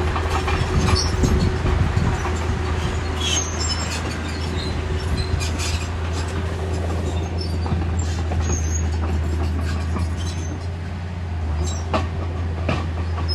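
Small crawler bulldozer's diesel engine running steadily with a low drone, with scattered metallic clanks and rattles from the machine.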